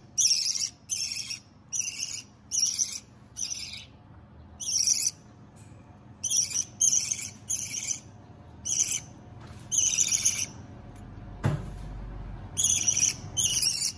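Budgerigar chick giving a run of short, high calls, about one or two a second with a couple of pauses. One soft knock comes near the end.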